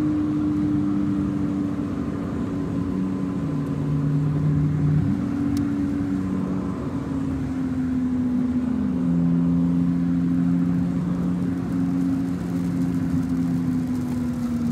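Car cabin noise while driving on a wet road: a steady engine and drivetrain hum with road noise.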